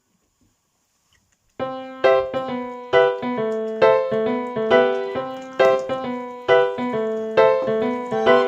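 Background piano music: near silence for the first second and a half, then a steady, regular run of piano notes.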